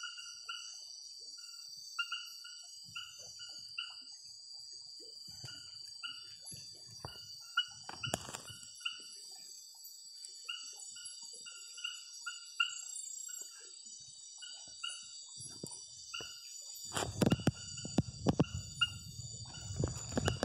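Night forest chorus: a steady high-pitched insect trill, with a short animal call repeated about once or twice a second. In the last few seconds, louder rustling of leaves with knocks as the foliage is brushed and handled.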